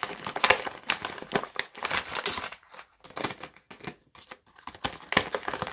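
Crinkly tool-kit pouch being handled and emptied, rustling and crackling irregularly, with small sharp knocks as the plastic tools inside come out onto the table.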